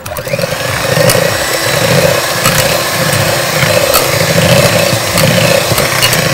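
Electric hand mixer running steadily, its beaters whipping a butter, powdered sugar and egg yolk batter in a steel bowl, with a few sharp clicks as the beaters knock the bowl.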